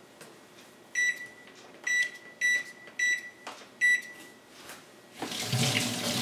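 KitchenAid Superba oven's touch-pad control beeping five short times as its keys are pressed to set the oven to 450 degrees. About five seconds in, a kitchen faucet starts running water into a stainless-steel sink.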